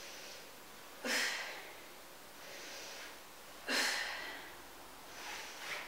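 A woman breathing hard under exertion during weighted glute kickbacks: a forceful exhale with each leg lift, twice, about a second in and again near four seconds in, with softer inhales between.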